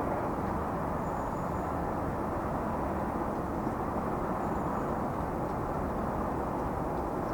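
Steady jet noise from a Boeing 747-400's four engines as the airliner comes in to land, an even rumbling rush with no change in pitch.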